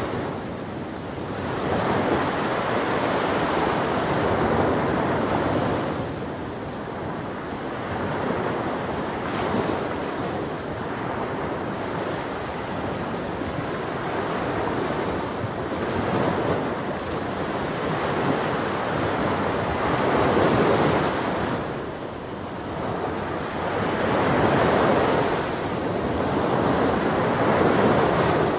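Ocean surf washing onto a beach, the waves swelling and receding every few seconds in a continuous rush, with some wind on the microphone.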